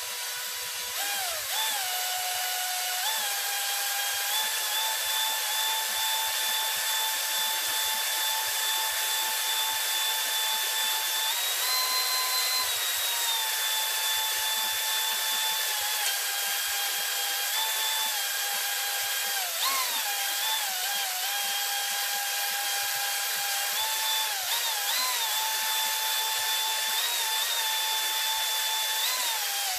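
Electric drill spinning a stone cylinder hone inside a cylinder bore of a small-block Chevy 350 cast-iron block, honing just enough to break the glaze and leave a crosshatch so the new rings will seat. The drill's whine is steady, its speed dipping and rising several times.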